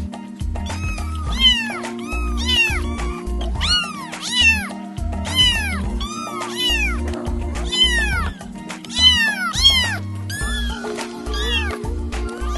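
Kittens meowing loudly, a rapid series of high calls that rise and fall in pitch, several overlapping, over background music with a steady bass line.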